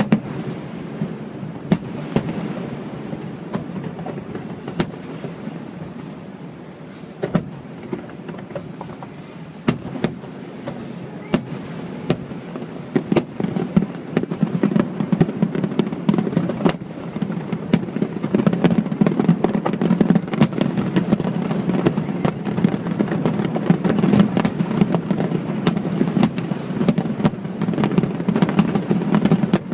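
Aerial fireworks bursting. Scattered sharp bangs give way, about halfway through, to a dense rapid barrage of bangs and crackles that grows louder toward the end.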